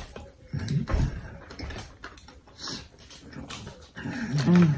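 Eating sounds: chewing and wet mouth clicks, with two short hummed 'mmm's from a full mouth, one about half a second in and one near the end.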